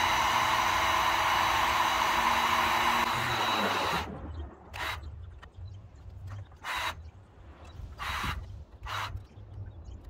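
Heat gun blowing with a steady rush and motor whine, switched off about four seconds in, its motor winding down. After that, a few short rustling sounds.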